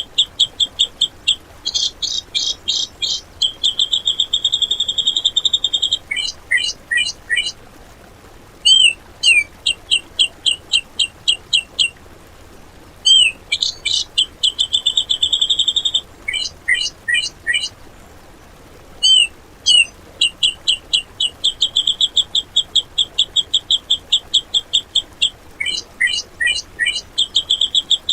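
Cucak jenggot (grey-cheeked bulbul) singing loud, harsh rapid trains of repeated notes, many per second, broken by short groups of quick dropping notes and brief pauses. Similar phrases recur several times.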